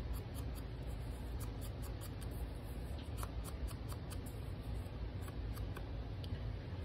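Light, scattered taps and rubs of a foam ink blending tool dabbed along the edges of a paper flower cut-out, over a steady low hum.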